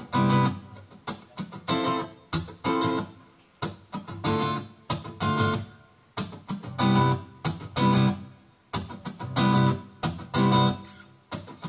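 Acoustic guitar playing a song's intro: repeated chords, each ringing out and fading before the next.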